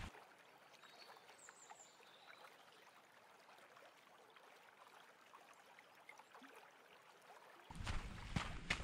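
Faint, steady trickle of a shallow, stony creek, with a few high bird chirps about one and a half to two seconds in. Near the end, louder close rustling and steps take over.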